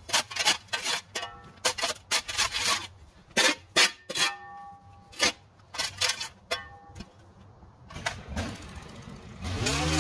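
A run of irregular knocks and clanks, some leaving a short metallic ring, from equipment being handled. Near the end an engine starts up, its pitch rising briefly before it settles into a steady run.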